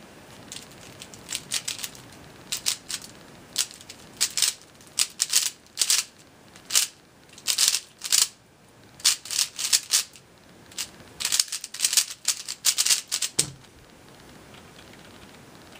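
Dayan Zhanchi 3x3 speedcube being turned at speed during a timed solve: bursts of rapid plastic clicking from the layer turns, broken by short pauses. It ends about 13 seconds in with a single thump as the cube is set down and the timer stopped.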